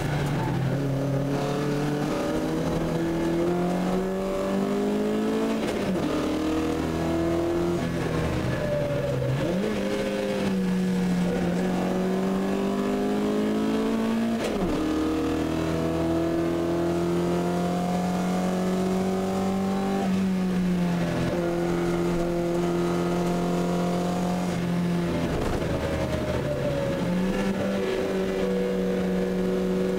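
Talbot Sunbeam 1600 Ti race car's four-cylinder engine heard from inside the cabin, pulling hard with its pitch climbing under acceleration and breaking sharply about five times at gear changes and lifts for corners.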